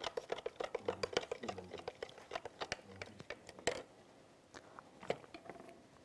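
A spoon stirring a rose-water, alum and starch mixture in a small plastic cup: a quick run of light clicks and scrapes against the cup, thinning to a few scattered clicks after about four seconds.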